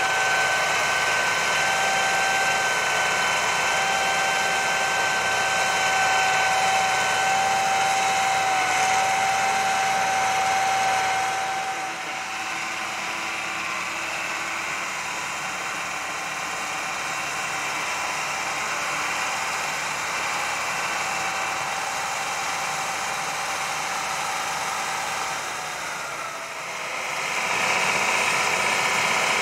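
Diesel engine of a Gomselmash Palesse 2U250A self-propelled power unit running as it drives a planter across a field. A steady high whine sits over it for about the first eleven seconds, then drops away as the sound gets quieter. It grows louder again near the end.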